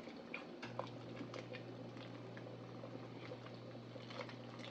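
Faint bubbling of cabbage soup boiling in a stainless steel pot, with many small scattered pops as a wooden spoon is drawn through it. A low steady hum starts about half a second in.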